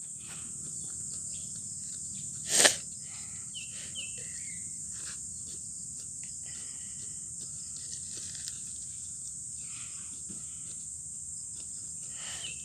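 Steady high-pitched chorus of crickets and other insects, with a few short faint chirps. A brief loud rustle sounds about two and a half seconds in.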